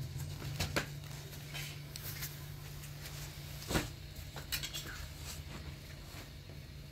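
A handful of light taps and knocks from things being handled while cooking, the sharpest about four seconds in, over a steady low hum.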